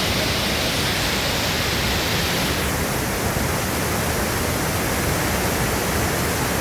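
Waterfall: a steady, loud rush of falling water, its high hiss easing slightly partway through.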